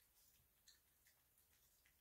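Near silence with faint, irregular clicks of a dog licking spread cheese off a plastic Ziploc bag; the clearest click comes about two-thirds of a second in.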